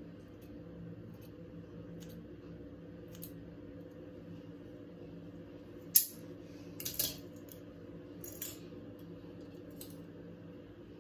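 Scissors snipping hair while a fringe is trimmed: faint clicks early on, then a few sharp cuts, the loudest about six seconds in and a couple more around seven and eight seconds, over a steady low hum.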